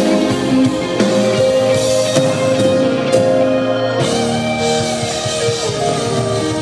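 Live band music: guitar over a drum kit, playing steadily.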